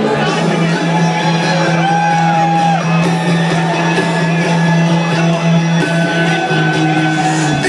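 Trance music from a DJ set played loud through a club sound system. A low bass note is held almost throughout, under sustained synth notes with a gliding tone about two seconds in.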